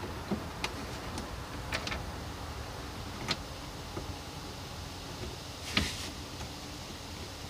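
Scattered light clicks and knocks of parts and tools being handled during an intercooler install, the loudest a short clatter near six seconds in, over a low steady hum.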